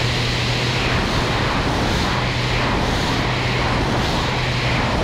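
Extra 300L aerobatic plane in flight: the engine and propeller drone steadily with a low hum under loud rushing airflow noise.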